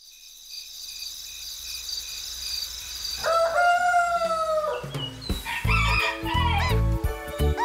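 A soft high shimmer builds, then a rooster crows once, about three seconds in, for nearly two seconds: the wake-up call marking morning. Near the end, upbeat children's music with a beat and chirpy bird calls comes in.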